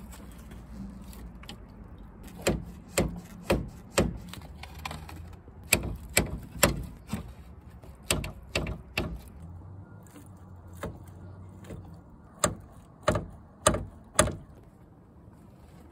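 Sharp knocks in groups of three or four, about two a second, from work on the radiator and its mounting in the front of a Nissan Micra K11.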